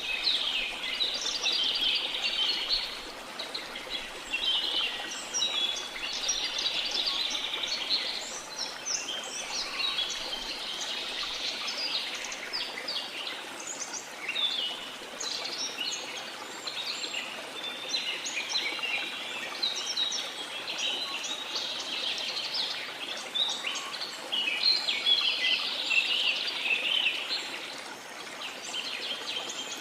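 Rainforest ambience: many birds chirping and calling at once over a steady rush of flowing river water. The bird chorus swells and thins in waves.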